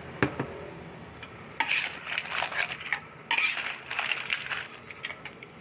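Metal spatula turning a wok full of crabs, cockles, shrimp and corn in sauce, the shells clattering and scraping against the wok. A single sharp clack comes near the start, then two bursts of clattering a second or more each.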